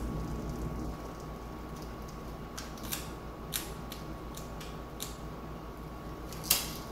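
Masking tape being laid along a metal panel and pressed down: a few faint, short crackles and clicks, with a sharper one near the end.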